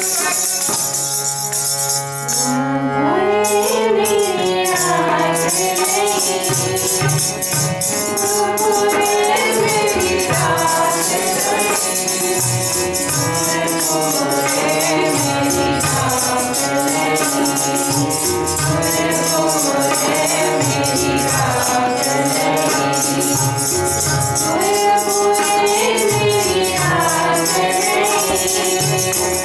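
Sikh keertan: a woman sings a devotional hymn over held harmonium chords, with a steady jingling hand-percussion beat. The voice comes in about two and a half seconds in, after a moment of the instruments alone.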